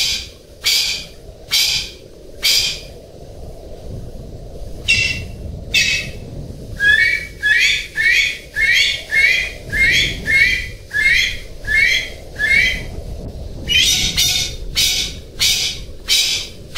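Golden pheasant calling: a long run of short, harsh, raspy notes. They come about one a second at first, then quicken to about two a second, with brief pauses between runs. A steady low background noise runs underneath.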